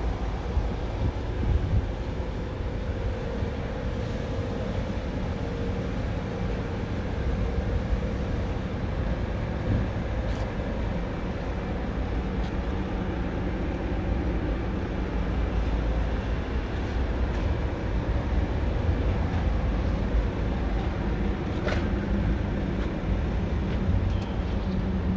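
Scania R tractor unit's diesel engine idling steadily, a low even running sound, with a few light clicks.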